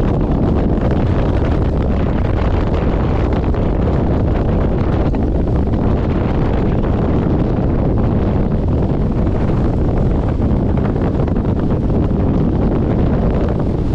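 Strong wind buffeting the microphone: a loud, steady, low rumble with no breaks.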